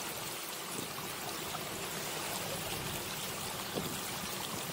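Steady rushing and trickling of shallow sea water, with a few faint splashes.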